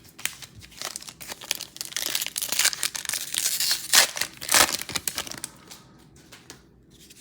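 A foil trading-card pack wrapper crinkling and tearing as it is ripped open by hand: a run of dense crackles lasting about five seconds, dying away near the end.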